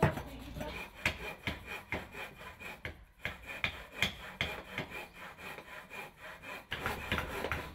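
Wooden masks being carved by hand: irregular knocks of a small axe chopping wood on a chopping block, with the scraping and rubbing of carving knives shaving wood.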